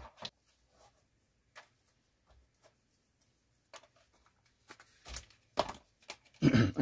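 A few scattered light knocks and clicks of hand-held items being set down and handled on a plastic mat: a sharp knock right at the start as a metal flashlight is put down, then sparse smaller clicks with near quiet between and a louder knock shortly before the end.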